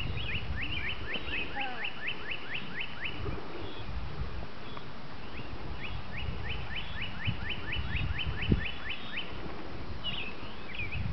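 A songbird singing two fast runs of downslurred whistled notes, about five notes a second, each run lasting about three seconds.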